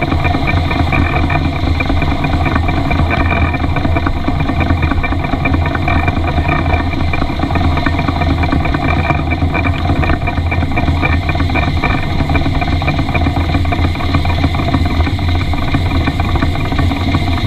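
Miniature live-steam model of an Isle of Man Railway locomotive running steadily along its track, its exhaust, wheels and motion making a continuous mechanical noise heard close up at the front of the engine.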